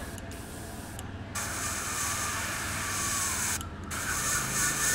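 Airbrush spraying: a steady hiss of air starting about a second and a half in, cutting out briefly about three and a half seconds in as the trigger is released, then starting again.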